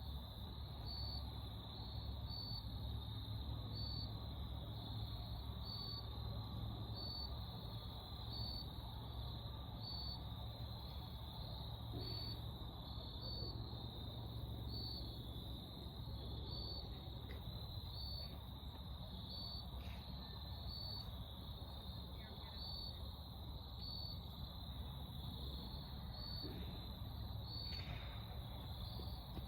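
Crickets chirping in a steady high trill that swells about once a second, over a faint low rumble.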